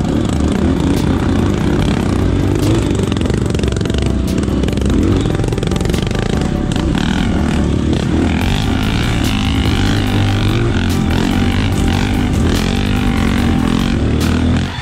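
Honda CRF 230 trail motorcycle's single-cylinder four-stroke engine running steadily, heard from the rider's own bike.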